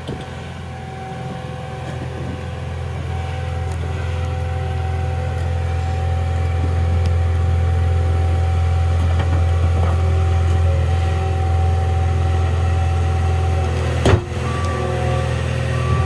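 Caterpillar 236 skid steer's diesel engine running under load as it scoops soil and drives forward with a full bucket, growing louder over the first several seconds as it approaches. A single sharp metallic clank about fourteen seconds in.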